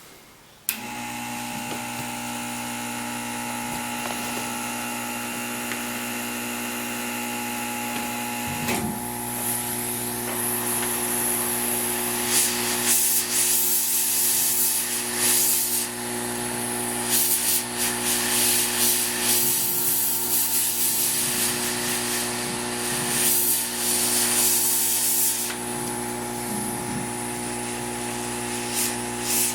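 Hot air tool's blower starting and running steadily, a constant hum with airflow hiss. From about nine seconds in, intermittent scraping and rubbing come and go over it.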